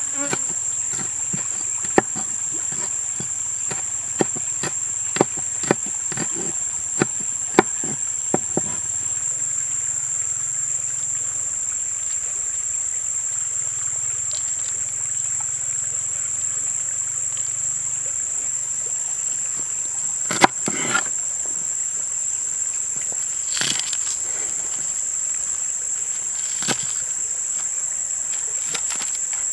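A large knife chopping fresh chilies on a wooden cutting board: about a dozen sharp chops in the first eight seconds, then a few louder knocks later on. A steady, shrill insect drone runs underneath throughout.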